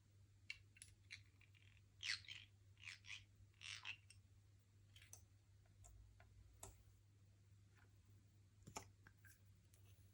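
Faint handling sounds of slime being worked: scattered soft clicks, with a run of short sticky crackles about two to four seconds in, over a low steady hum.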